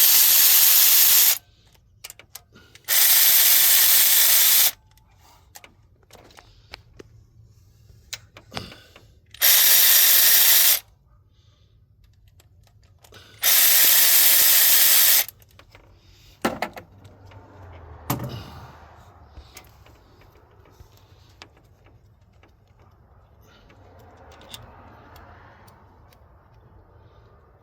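Power tool run in four bursts of about two seconds each, backing out the oil pump's mounting bolts, followed by a few sharp metal clicks.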